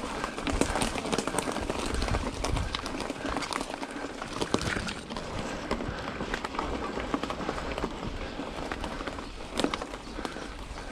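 Mountain bike being ridden on a dirt trail: steady tyre noise with frequent small clicks and rattles from the bike, over a fluctuating low rumble of wind on the microphone.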